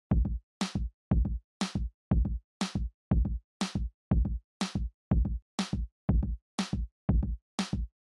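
Background electronic music: a drum-machine beat alternating a deep kick and a sharp clap, about two hits a second, each hit cut off short with silence between.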